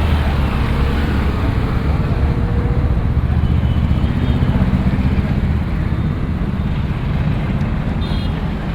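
An engine running steadily with a loud, even low rumble.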